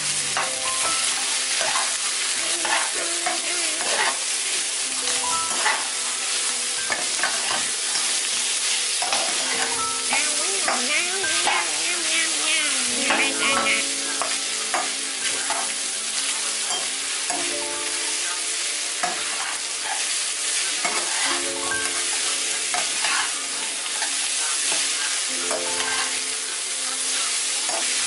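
Ground beef and vegetables sizzling as they fry in a nonstick pan, with a spatula scraping and tapping against the pan as the mixture is stirred.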